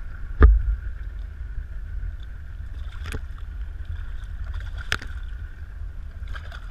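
Steady low rumble of a boat's engine and water washing past the hull, with three sharp knocks and splashes as a hooked fish is brought alongside; the loudest knock comes about half a second in.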